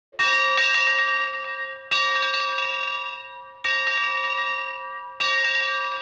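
Large locomotive-style bell on a yoke stand, swung by hand and struck four times, roughly every second and a half. Each stroke rings out with a clear, bright tone and fades before the next.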